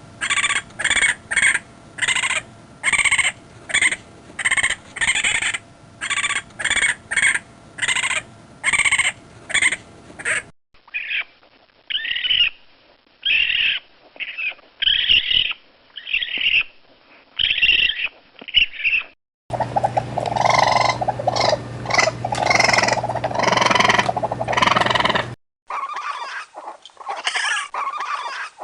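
Raccoon calls from several spliced recordings. First comes a rapid string of short, high chittering calls, about two a second. Then come calls spaced about a second apart, then a dense stretch of overlapping calls over a low hum, and near the end more short calls.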